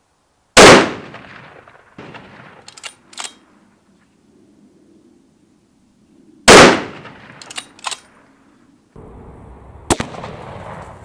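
Two shots from a .308 Savage Impulse bolt-action rifle fitted with a muzzle brake, about six seconds apart, each a sharp loud crack that rings off. About a second and a half after each shot come two quick metallic clicks from the straight-pull bolt being cycled. Near the end there is a further sharp crack over steady outdoor background noise.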